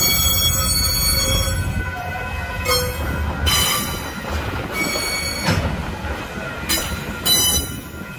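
Steel wheels of container freight wagons squealing in several short high-pitched bursts as the train rolls slowly across a street crossing, over a steady low rumble of the wagons.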